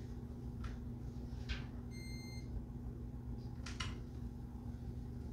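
Fabric and a plastic quilting ruler handled on a table: a few soft taps and rustles over a steady room hum. About two seconds in, a short electronic beep sounds once for about half a second.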